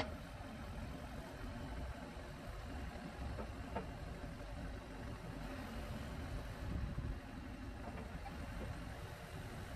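Ford backhoe's engine running steadily while its hydraulic boom lifts the bucket off a tire, with a couple of faint knocks.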